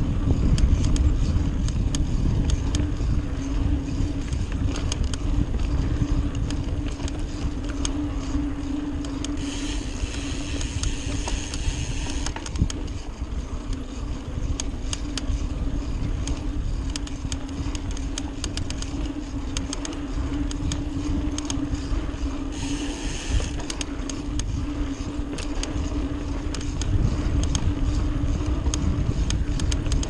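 Trek Fuel EX mountain bike rolling along a dirt singletrack: a continuous low rumble of wind and tyre noise on the camera's microphone, with a steady hum, many small clicks and rattles from the bike over the bumps, and two brief hissing stretches about ten and twenty-three seconds in.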